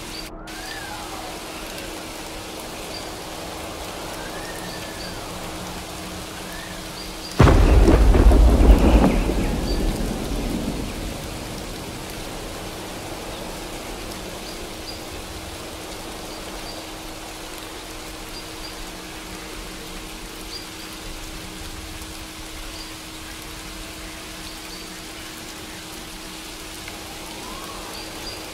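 Steady rain with a sudden loud thunderclap about seven seconds in, which rumbles away over the next few seconds. A steady low tone runs underneath.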